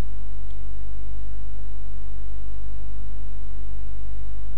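Steady low electrical hum with a faint buzz of evenly spaced overtones above it, unchanging throughout.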